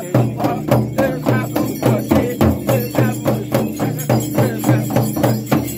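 Shaman's single-headed frame drum beaten with a curved stick in a quick, steady rhythm of about three strokes a second, with bells jingling at each stroke.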